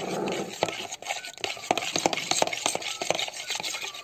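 Metal spoon stirring a thin sour-cream and water batter in a bowl, clinking and scraping against the sides in quick, repeated taps.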